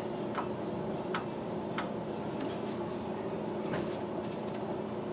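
A few light, sharp clicks and taps, roughly one a second, from small parts and hand tools being handled, over a steady background hum.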